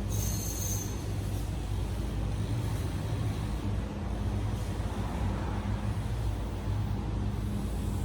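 A steady low mechanical drone and rumble, with a brief high hiss during the first second.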